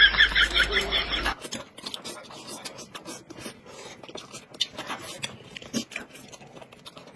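A quick run of 'ha-ha' laughter for about the first second, cutting off sharply. Then close-miked eating: chewing and smacking mixed with small clicks of chopsticks and tableware.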